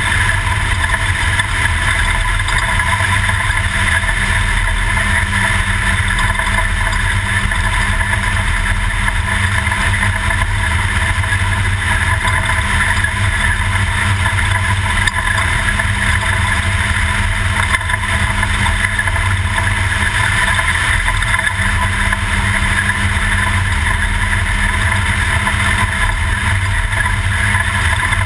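Toyota desert race truck driving, its engine and road noise loud and steady, with no rise or fall in pitch.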